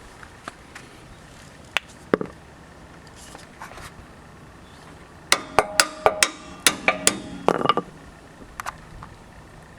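Sharp metal-on-metal clinks and knocks from work on a truck's rear shock mount. A few scattered knocks come first, then a quick, irregular run of about eight ringing clanks between roughly five and eight seconds in.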